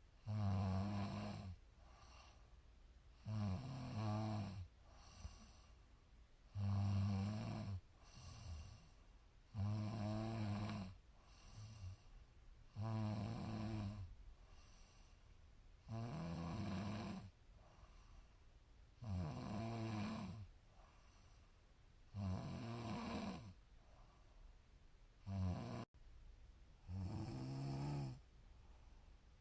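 A woman snoring in her sleep in a steady rhythm, about one snore every three seconds. Each snore is a low, pitched rattle lasting a second or so, with a quieter breath between snores.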